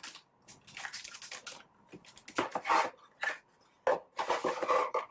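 Plastic packaging crinkling and a cardboard box being handled, in irregular rustling bursts with short pauses between.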